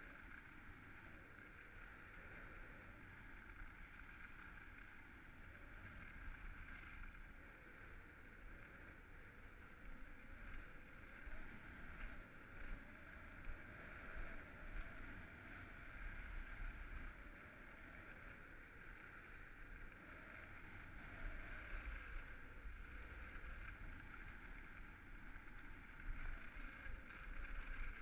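Skis sliding over groomed snow, with wind rumbling on the microphone; the noise swells and eases without a break.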